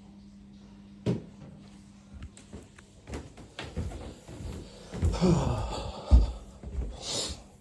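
Knocks, bumps and rustling of a door and things being handled, with a loud thump just after six seconds. A short falling pitched sound comes about five seconds in, and a brief hiss near the end.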